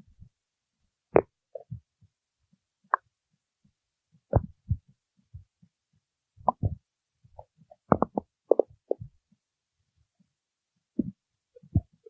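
A person's stomach growling: about a dozen short gurgles and squeaks at irregular intervals with silent gaps between them. Some are low and dull, others higher-pitched and squeaky.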